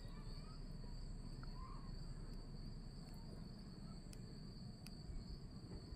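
Faint, steady, high-pitched trilling of crickets, over a low rumble of outdoor background.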